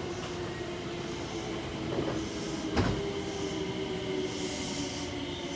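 JR West 225-series electric train at a station platform, a steady hum with a single sharp knock near the middle.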